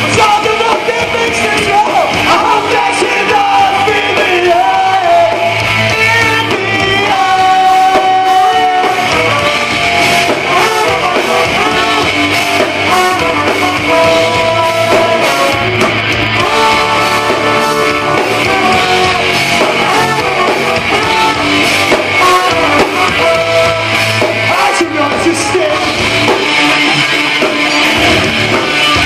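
Live rock band playing loud: a singer over electric guitars and drums.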